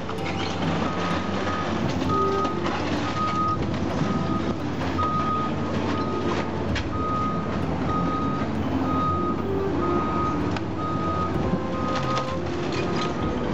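A backup alarm beeping steadily about once a second, starting about a second in, over the running diesel engine of a Cat hydraulic excavator demolishing a building, with scattered cracks and crashes of breaking timber and falling debris.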